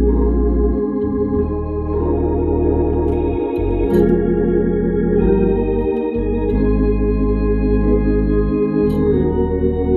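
Hammond drawbar organ playing slow, sustained gospel chords over held bass notes, the chords changing every second or two.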